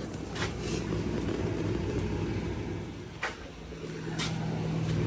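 Steady low mechanical hum, with a few short clicks about a third of a second and three to four seconds in, and a low tone coming up in the second half.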